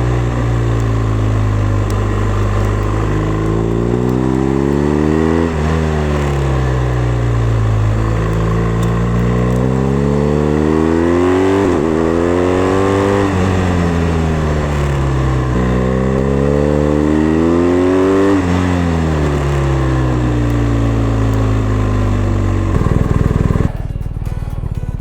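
BMW R1250RS 1254 cc boxer twin engine under way, heard close up: its note rises with the throttle and drops sharply several times at gear changes and lift-offs. Near the end the engine note gives way to a different, rougher low rumble.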